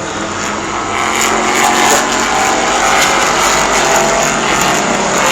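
Asphalt-track race cars running laps, their engines passing in a pack and growing louder about a second in.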